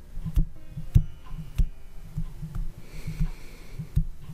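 A person breathing close to a microphone, with a breath about three seconds in, over irregular low thumps and a few sharp clicks.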